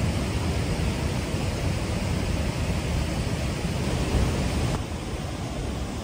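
Steady roar of rushing water from Chinda Falls, a wide waterfall close by, heavy in the low end. It drops a little in level near the end.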